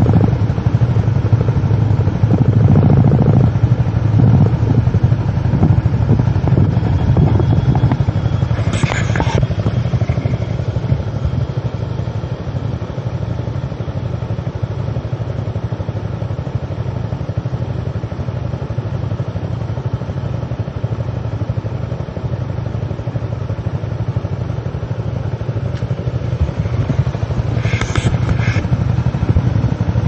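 Riding noise from a Honda Click 125 scooter's single-cylinder engine under way, mixed with wind buffeting on the camera microphone, a steady low rumble that eases slightly after the first few seconds. A brief higher-pitched clatter sounds about nine seconds in and again near the end.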